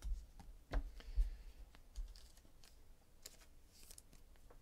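Trading cards being handled and dealt onto stacks on a table: a string of light clicks and taps as cards are flicked and set down, a few soft thumps on the table, and short papery slides about a second in and again near the end.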